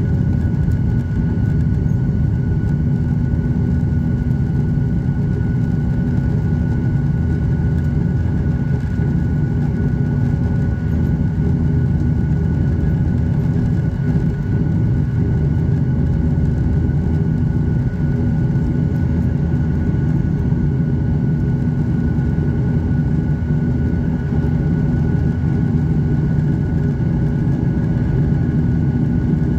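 Steady cabin drone of a Boeing 737-900ER in its climb after takeoff, heard from a window seat over the wing: the CFM56-7B turbofans and airflow make a deep, even rumble with a steady low hum and a thin high whine over it.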